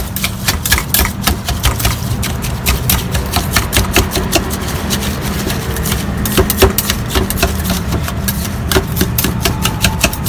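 Wire whisk beating mashed avocado in a stainless steel cup, its wires clicking and scraping rapidly and irregularly against the metal sides as the flesh is broken down. A steady low hum runs underneath.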